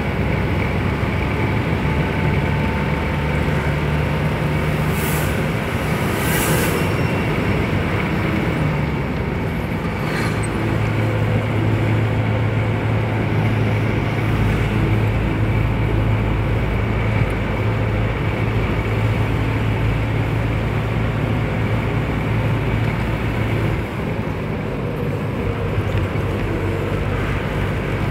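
Engine and road noise of a moving vehicle heard from inside its cabin: a continuous rumble and hiss with a low engine hum that shifts in pitch a few times.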